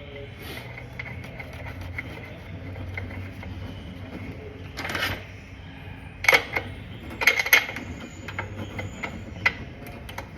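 Scattered sharp metallic clicks and knocks of hand tools and engine parts being handled, with a short scraping rattle about halfway through, while the new spark plug goes into the Husqvarna K770 cut-off saw; a low steady hum runs underneath.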